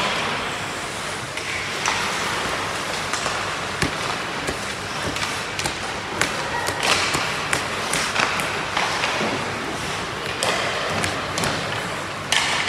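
Ice hockey in play: sharp clacks and knocks of sticks on the puck and ice and of the puck on the boards, scattered irregularly over a steady hiss of skates on the ice.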